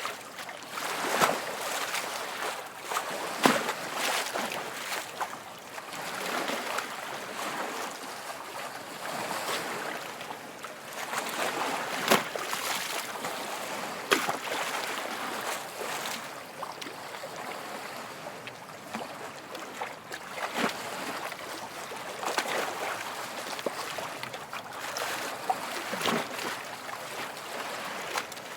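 Small waves lapping and splashing: a steady wash of moving water broken by brief, sharper splashes at irregular intervals.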